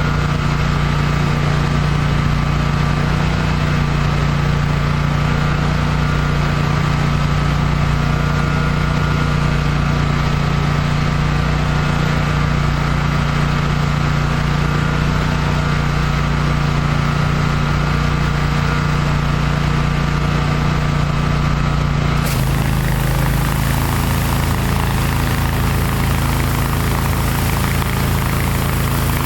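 A 30 hp Kohler engine on a Hydro Tek hot water pressure washer running steadily under load. About 22 seconds in the sound changes abruptly: a hiss comes in over a slightly lower engine note.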